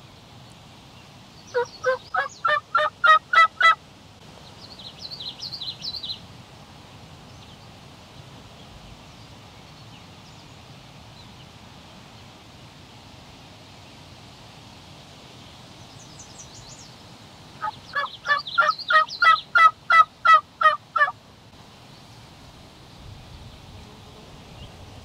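Turkey yelping: a series of about eight evenly spaced yelps getting louder early on, and a longer series of about ten about 18 seconds in, with a few softer, higher-pitched notes between them.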